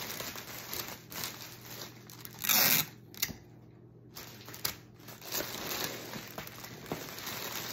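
Clear cellophane basket wrap crinkling and rustling as the wrapped basket is handled and lifted, with one short loud crackle about two and a half seconds in.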